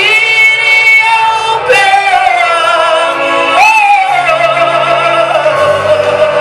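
Singing of a Swahili gospel worship song, a melodic vocal line gliding between held notes over instrumental backing with sustained bass notes.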